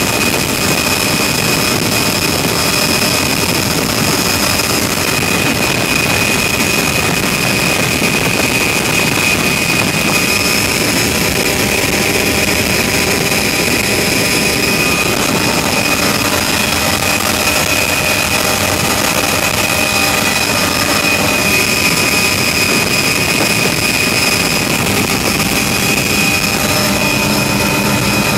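Helicopter in cruise flight heard from inside the cabin: a loud, steady rush of engine and rotor noise with a high, steady whine on top.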